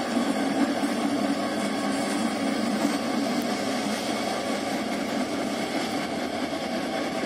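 Diesel locomotive engine running steadily as the locomotive moves slowly past with its passenger coaches.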